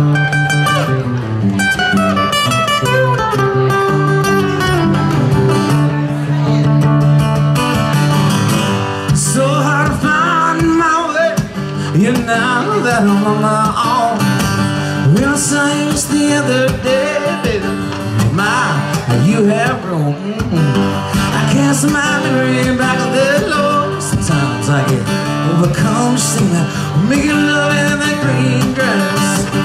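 Live acoustic guitar playing, with a man's singing voice joining in about nine seconds in and carrying on over the guitar.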